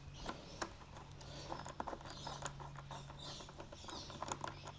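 Light, irregular clicks and scraping of a small Phillips screwdriver working the screws on a motorcycle battery's terminals, with small metal parts being handled. A faint low hum sits underneath.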